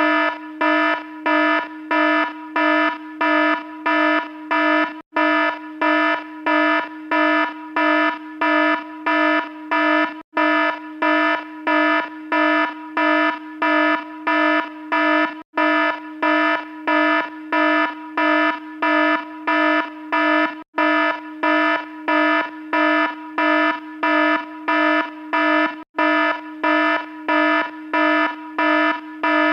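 Alarm sounding a low, buzzy tone that pulses about twice a second without letup, with a brief break roughly every five seconds.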